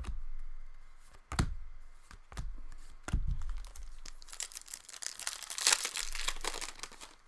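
A few sharp knocks, then a foil hockey card pack (2015/16 Upper Deck Series 1) being torn open, its wrapper crinkling for a couple of seconds near the end.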